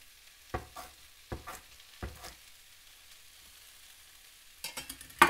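Chef's knife chopping kale stalks on a wooden chopping board: several sharp knocks in the first two and a half seconds, then a quick clatter near the end with one loud knock. A faint sizzle of potatoes frying in the pan runs underneath.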